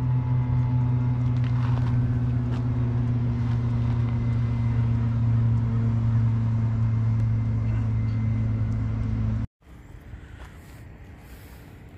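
Steady low drone of a running motor vehicle. It cuts off abruptly about nine and a half seconds in, giving way to much quieter outdoor background sound.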